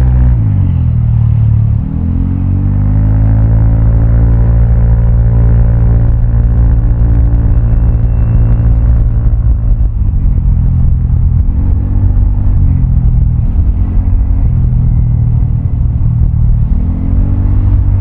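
Vespa automatic scooter's single-cylinder engine running through a Prospeed Black CNC aftermarket exhaust while riding: the note drops as it slows right at the start, climbs again and holds steady, then rises and falls several times with throttle changes from about ten seconds in.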